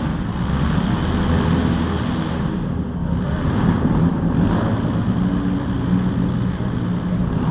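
Demolition-derby compact cars' engines running and revving, a steady low rumble that rises and falls in pitch.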